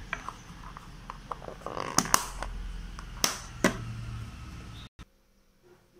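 Clicks and knocks of a stainless-steel tiffin box and a plastic snack box being handled and stacked, with a few sharp taps about two and about three and a half seconds in. The handling noise stops suddenly about five seconds in.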